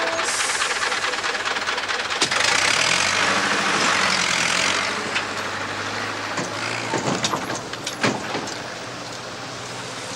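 Zetor tractor engine running and pulling away, its pitch rising slightly, under a loud hiss over the first few seconds; a few sharp clanks come near the end.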